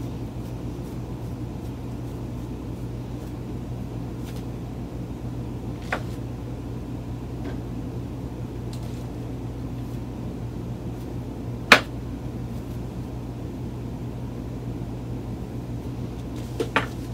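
Steady low hum of a fan running, with a few light clicks and knocks; the sharpest click comes about two-thirds of the way through.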